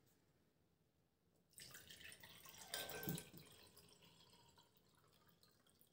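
Water poured from a glass carafe into a tall drinking glass: a faint splashing that starts about a second and a half in and dies away after about two seconds.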